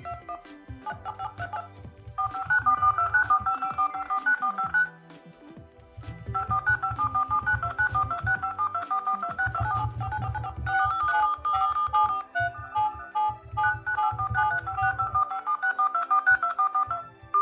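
Mobile phone timer alarm and ringtone tones sounding together: a fast electronic beeping melody over a pulsing low beat, dropping away briefly about five seconds in and then starting up again.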